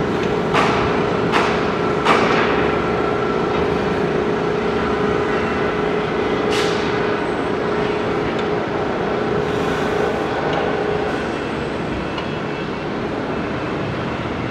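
Construction-site machinery running steadily with an engine drone that fades about eleven seconds in. Four sharp knocks ring out over it in the first seven seconds.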